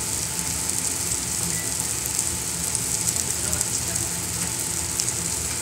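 Pork belly strips and garlic cloves sizzling on a Korean barbecue grill plate: a steady frying hiss with fine crackles throughout.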